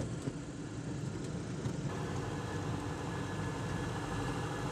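Light aircraft's engine running steadily during landing, heard from inside the cockpit as a low drone. A few faint clicks come right at the start.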